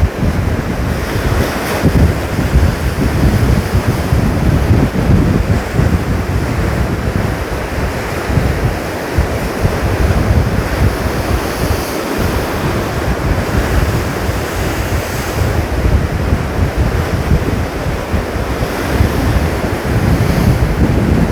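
Rough storm surf breaking and churning into white foam, with strong wind buffeting the microphone; the heavy seas are whipped up by an approaching typhoon.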